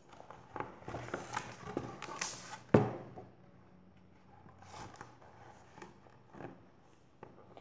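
Handling noise of a hardcover picture book being held up and regripped: soft rustles and light taps, with one sharp knock about three seconds in.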